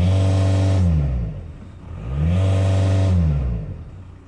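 VW Caddy 1.9 TDI diesel engine revved at standstill. The revs are held high, drop back about a second in, are revved up again about two seconds in, sit flat at a ceiling for about a second, then fall back to idle near the end. The rev ceiling is what the mechanic takes for the normal limit at standstill.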